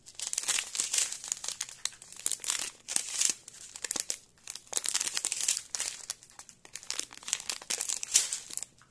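Small plastic packets of diamond-painting drills crinkling as they are handled and sorted, in a run of irregular crackly rustles with a few short lulls.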